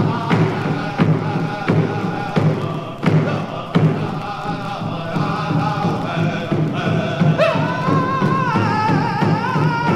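Background music with a steady drum beat, a stroke about every 0.7 seconds. About seven seconds in, a high, wavering held melody line comes in over the drum.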